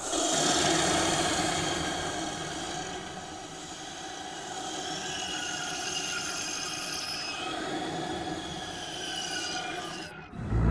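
Dark intro soundscape: a noisy bed of hiss and rumble with several high, drawn-out whining tones that slide slowly in pitch, loudest at the start and cutting off abruptly just before the end.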